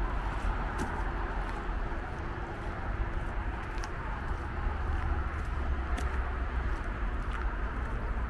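Steady city traffic noise, with a low rumble underneath and a few faint scattered clicks.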